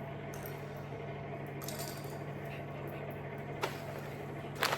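LEGO plastic pieces being handled, with a small click about three and a half seconds in and a louder sharp click near the end, over a faint steady low hum.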